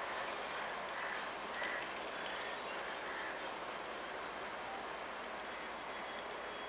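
Faint outdoor ambience as an EMU electric local train draws away: its running noise fades to a steady low hiss. A few short bird chirps come in the first few seconds over a constant high insect whine.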